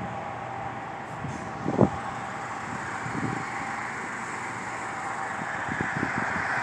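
Steady distant engine noise with a faint steady whine through it, and one short knock about two seconds in; the noise grows slightly louder near the end.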